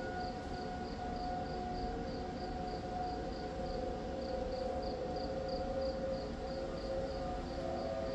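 Outdoor storm warning siren sounding in the distance, a steady wail of several tones held at one pitch. Night insects chirp faintly and evenly alongside, about three times a second.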